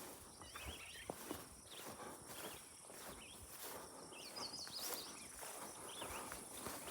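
Faint footsteps along a trail with outdoor ambience: short high chirps come and go over a steady high-pitched insect drone.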